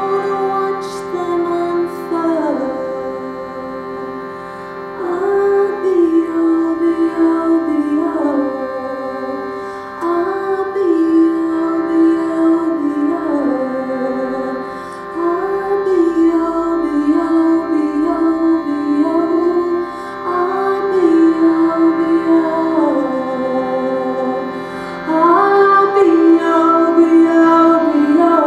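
A woman singing a slow melody over a steady drone from a shruti box, the small bellows-pumped drone box on her lap. Her phrases last a few seconds each and step downward in pitch, while the drone holds unchanged beneath them.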